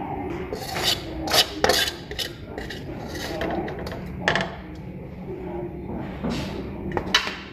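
A slotted metal spatula and tongs scraping along the inside of a large metal pan, with several sharp clinks of metal on metal as fried chicken feet are lifted out.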